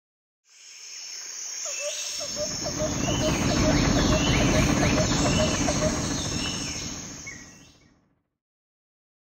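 Insect-like trilling and repeated chirping calls over a low rumble. The sound fades in, swells, and fades out to silence about eight seconds in.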